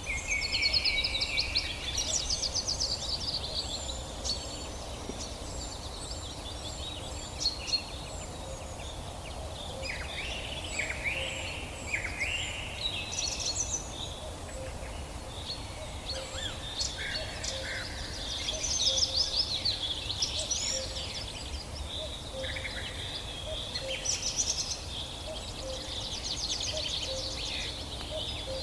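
Several songbirds singing and calling over one another: quick chirps, rapid trills and short whistled phrases, over a steady low background rumble.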